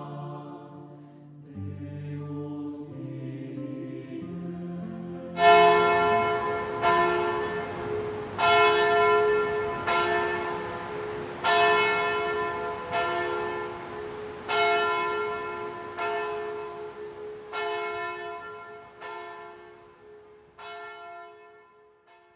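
A few seconds of sung chant, then a large bell tolling about every second and a half. Each strike rings out over a steady hum, and the tolling fades away toward the end.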